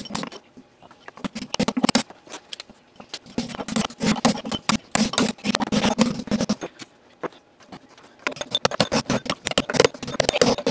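Hammer striking a steel drift to drive the rear drum bearing out of an LG front-load washer's tub: three runs of rapid metal-on-metal blows with short pauses between them.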